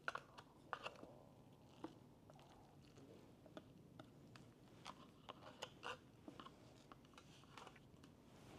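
Faint eating sounds of a person eating noodles with chopsticks: scattered small clicks of the chopsticks against the cup, with quiet chewing.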